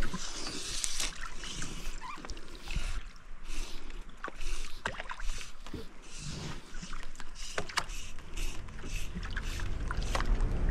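Water lapping against a small boat on a river, with scattered light clicks and knocks; a low rumble builds near the end.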